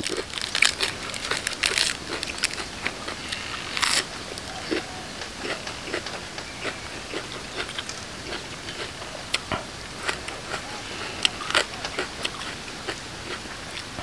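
Close-up eating sounds of a spicy lotus-stem salad with raw shrimp: crunching and chewing, with many irregular sharp crackles and clicks.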